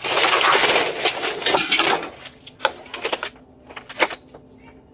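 A close struggle at a front door, picked up by a doorbell camera's microphone: about two seconds of loud scuffling and rustling, then several sharp knocks and bangs.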